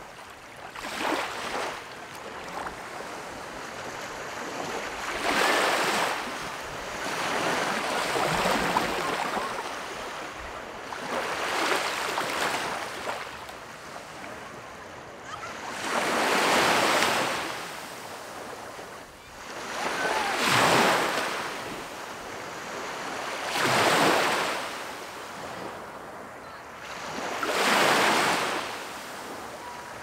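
Small waves breaking and washing up on a sandy beach, about eight swells of rushing surf that rise and fall a few seconds apart.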